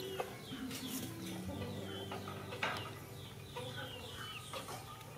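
Chickens clucking in the background with repeated short, high chirping calls, and one sharp click about two and a half seconds in.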